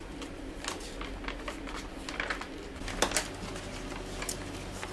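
Light rustling and small irregular clicks of things being handled on a shop counter, over a steady low hum.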